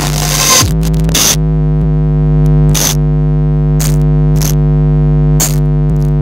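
Steady, loud electrical hum from a sound system's loudspeakers, with a handful of sharp clicks breaking in over it.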